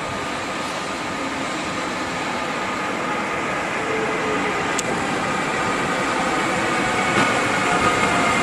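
Siemens Taurus electric locomotive of PKP Intercity (class 5 370) running slowly into a station platform with its passenger coaches, a steady high whine over the running noise, growing louder as it draws closer.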